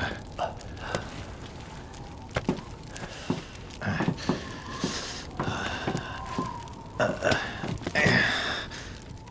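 Campfire crackling with scattered sharp pops, and a man's wordless vocal sounds twice, around the middle and near the end.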